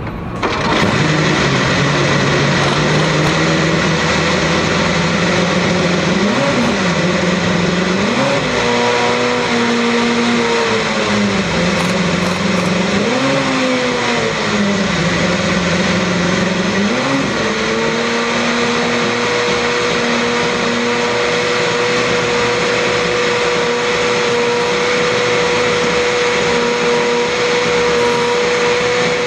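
Honda HSV-010 GT race car's 3.4-litre V8 engine idling. In the middle the throttle is blipped several times, each rev rising and falling, and then the engine holds a steady, higher-pitched idle.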